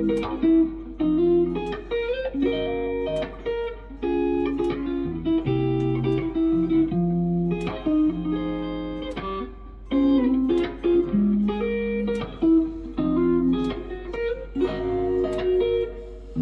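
Strat-style electric guitar played through its neck pickup, a Wilkinson pickup, with a run of picked single notes and chords and a brief pause about ten seconds in. The tone is warm but not muddy.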